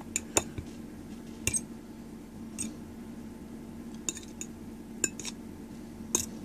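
Metal fork clinking and tapping against a ceramic plate, about nine scattered sharp clinks over a steady low hum.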